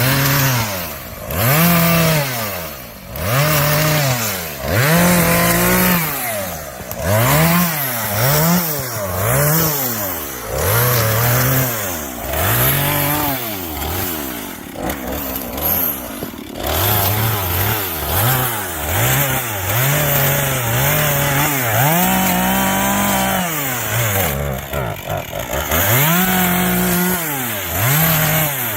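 Chainsaw cutting through a large tree trunk, its engine revving up and dropping back over and over, roughly once a second.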